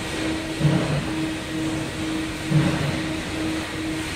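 Commercial chicken pressure fryer running with its lid closed: a steady mechanical hum with a short, louder low pulse about every two seconds.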